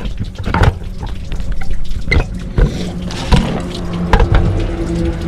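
Water running from a garden hose into a car radiator, with several sharp knocks from handling around the engine. A steady low tone comes in about three seconds in.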